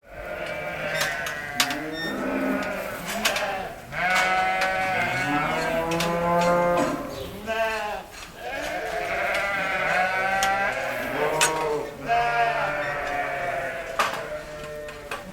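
A flock of sheep bleating, many calls overlapping almost without a break, with a few sharp clicks or knocks among them.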